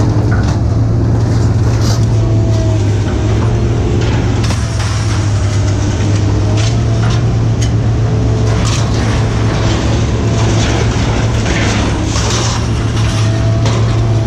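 A motor vehicle's engine running steadily with a low drone, with scattered rattles and knocks over it.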